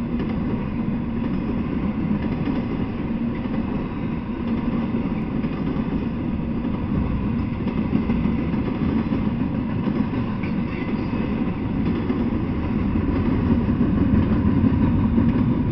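Double-stack container freight train rolling past at a steady speed: a continuous low rumble of steel wheels on rail, growing slightly louder near the end.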